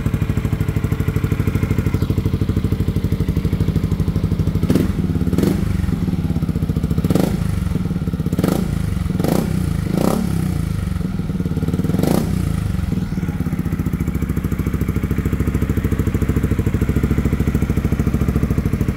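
Yamaha XMAX 250 scooter's single-cylinder engine idling through a Vilan MV1 stainless exhaust with its dB killer fitted, a subdued, held-back note. In the middle, about seven short sharp bursts cut in over the idle.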